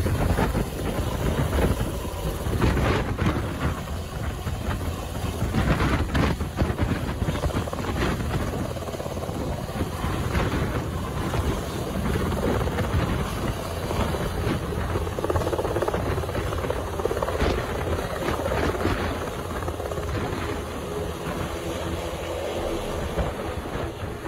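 HM Coastguard Sikorsky S-92 helicopter running close by: steady rotor and twin turbine engine noise.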